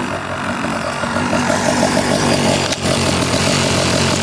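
Small engine of a motorized bicycle running steadily with a fast, even pulse.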